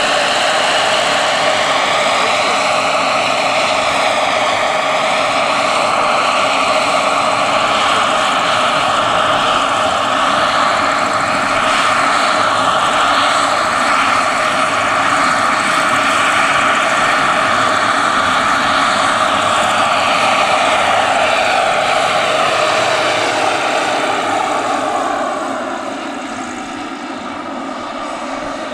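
Turbine-powered scale Bell 429 GlobalRanger R/C helicopter in flight: a steady turbine whine over the noise of the turning rotors. Near the end the pitch falls and the sound grows fainter as it climbs away.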